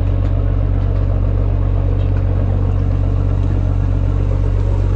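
Fishing trawler's diesel engine running steadily: a loud, even low drone that does not change.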